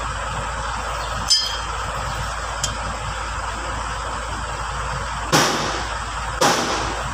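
Steel brake plates and friction discs from a Landini DT85 tractor's wet brake pack clinking as they are handled and pulled off the axle: a ringing metallic clink about a second in, a lighter one soon after, then two heavier clanks near the end, over a steady hiss.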